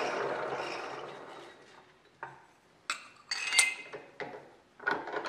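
The drilling machine's motor and spindle winding down, fading away over about two seconds. Then a handful of sharp metal clinks as a steel hinge piece is handled and set against the steel machine vise.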